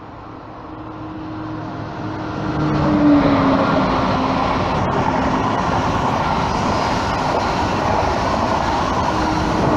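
SNCF TGV Atlantique high-speed trainset passing at speed. Its rolling roar builds over the first three seconds and then holds steady. A humming tone drops in pitch as the leading power car goes by, about three seconds in, and again as the rear power car goes by near the end.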